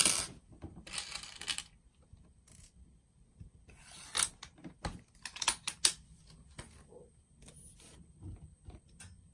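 Clicks and knocks of a VSR-10 airsoft sniper rifle being handled and loaded with a BB, the loudest a short burst right at the start, then scattered sharp clicks.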